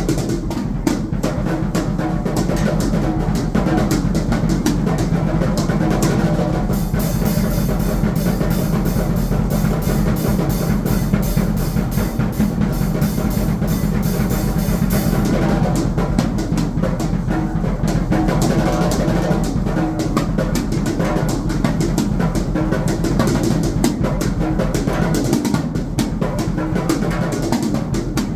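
Drum kit played fast and continuously, with dense bass and snare strikes. A steady high hiss joins for about eight seconds in the middle.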